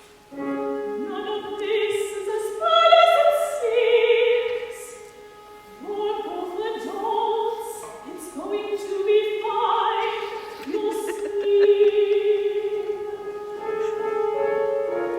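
Opera music: singing over instrumental accompaniment, with sustained held notes and several upward sliding phrases.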